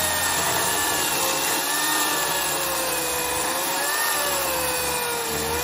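Parkside PKS 2200 A1 corded electric chainsaw cutting down through a log, its motor running steadily under load with a pitch that wavers as the chain bites into the wood.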